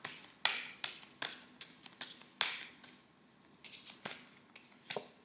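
Tarot cards being shuffled and handled: an irregular run of sharp flicks, taps and short rustles that thins out near the end.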